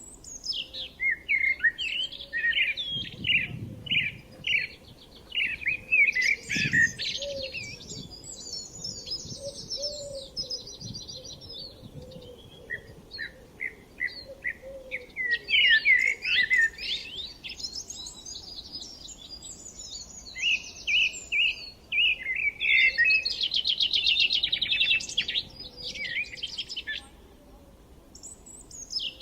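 Songbirds singing and chirping in quick runs of short notes and rapid trills, with a few brief lulls between phrases.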